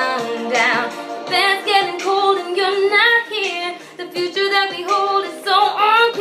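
A young woman singing a pop ballad unaccompanied, one voice holding and gliding between notes with a wavering vibrato on the held notes.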